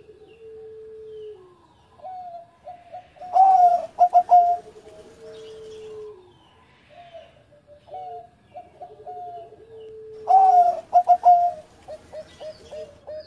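Zebra dove (perkutut) cooing: two song phrases, each building to a loud cluster of quick notes and trailing into a long held lower coo.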